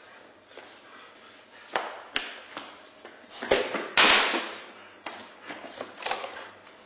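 A few irregular knocks and thuds from a person moving about on a hard tiled floor, the loudest about four seconds in.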